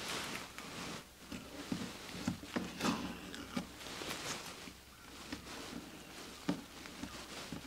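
Masking tape being peeled off a painted surface and handled: irregular rustling and crackling with scattered sharp ticks and a few soft knocks.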